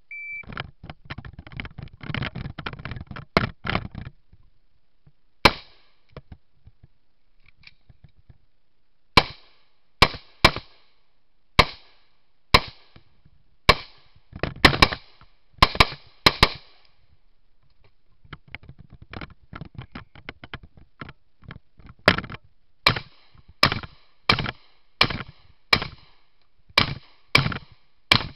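A short electronic beep, typical of a shot timer's start signal, then four seconds of movement and handling noise. After that come gunshots: about a dozen spaced irregularly, then a pause full of handling noise, then a string of about ten shots fired at a steady pace, roughly one every two-thirds of a second.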